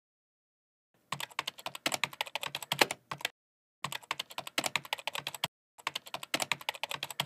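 Rapid keystrokes of typing on a computer keyboard, in three runs of about two seconds each with short pauses between. It is a typing sound effect laid over on-screen text being typed out.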